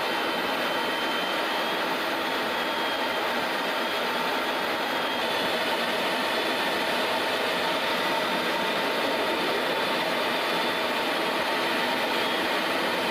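Steady cabin drone of an aircraft in flight, engine noise and rushing air heard from inside, with faint steady whining tones.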